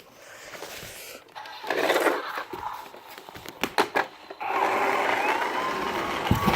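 Small motor of a battery-powered toy car whirring as the car runs, with a few sharp clicks in the middle and a steady whir starting about four and a half seconds in.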